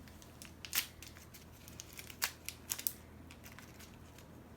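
Plastic wrapping of a LOL Surprise ball being crinkled and torn open by hand: a few sharp crackles and snaps, the loudest about a second in and a cluster between two and three seconds in.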